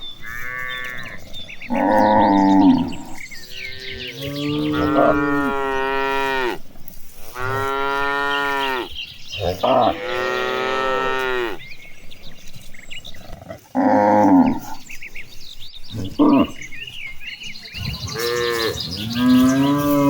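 Cattle mooing repeatedly: a string of about eight long, pitched moos of different lengths, with short pauses between.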